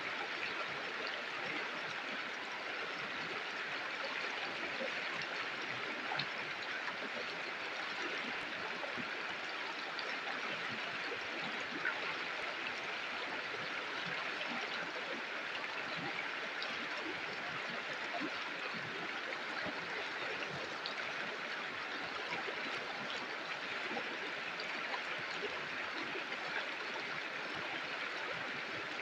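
River water flowing steadily over rocks, an even rushing with small splashes and gurgles scattered through it.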